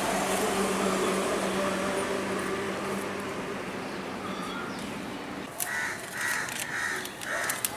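A crow cawing in a quick run of short, evenly spaced calls over a steady hum of street traffic, starting a little past halfway.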